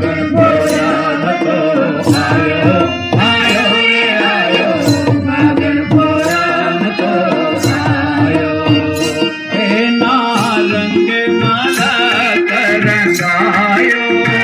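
A Dhuleti (Holi) festival song performed live: voices singing to harmonium and tabla, with the tabla's sharp strokes falling about once a second.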